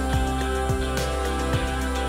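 Background music: sustained chords over a steady beat of deep drum hits that drop in pitch.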